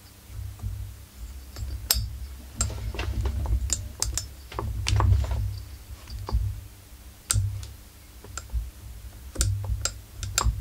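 Irregular sharp clicks and light knocks of metal and plastic as gloved hands grip and work the flywheel of a Husqvarna 44 chainsaw, over a low rumble that comes and goes.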